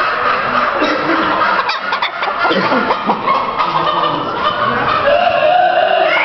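Many caged chickens and other fowl calling at once, a dense, steady din of overlapping clucks and calls.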